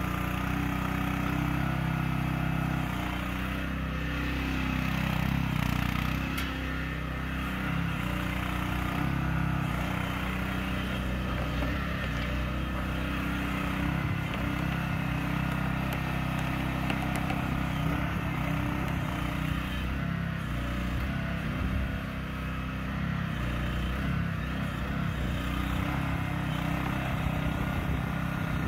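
The 405 cc gas engine of a Cougar CG10 mini excavator running steadily as the boom, bucket and tracks are worked, its note shifting slightly with the load.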